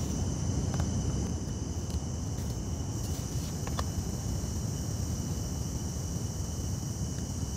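Crickets chirping in a steady high trill over a constant low roar. A light metal clink comes about four seconds in, as a pot is set on a small gas camping stove.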